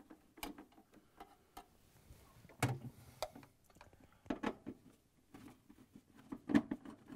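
Quarter-inch nut driver backing out the screws that hold a refrigerator evaporator assembly to the freezer back wall: scattered light clicks and scrapes of the driver and gloved hand, with a few louder knocks.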